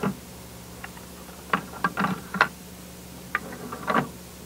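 3x3 speed cube being turned by hand, its layers clacking in scattered clusters of sharp clicks, over a steady low hum.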